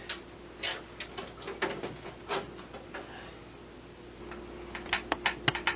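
Small clicks and scrapes of a PC case fan and its long mounting screws being handled and fitted against the computer case, ending in a quick run of sharp clicks.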